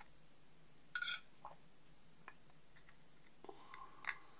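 Metal tweezers tapping and scraping against an earbuds charging case lid and case body while fine dust is packed into the hinge slot: a few faint light clinks, about a second in and again near the end.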